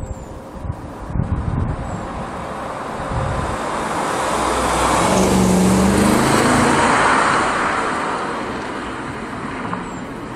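Audi A6 Avant 4.2-litre V8 on its original exhaust driving past, its engine note and tyre noise building, peaking about six seconds in and fading away.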